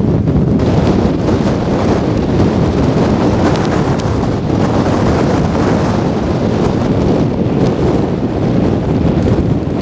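Blizzard winds of over 50 mph buffeting the microphone: a loud, constant low rumble of wind noise with small swells.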